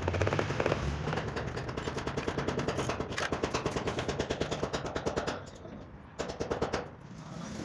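A percussive power tool rattling with a rapid, even beat, easing off briefly about five and a half seconds in and again near the end.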